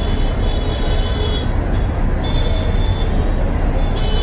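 City bus heard from inside its cabin, moving slowly in traffic: a steady low engine and road rumble, with short high-pitched squeals coming and going several times.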